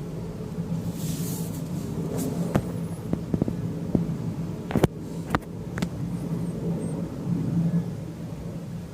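Robinson light helicopter droning steadily at a distance, a low hum with a constant pitch. Several sharp clicks fall in the middle.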